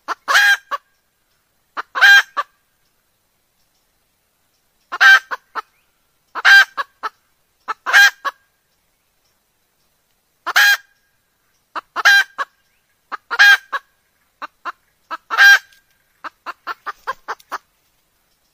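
Red junglefowl hen calling: a series of short calls, one to two seconds apart, with a quicker run of fainter short notes near the end.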